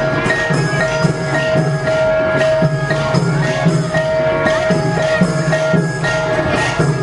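Music with a steady beat of about two knocks a second and ringing mallet percussion over held tones.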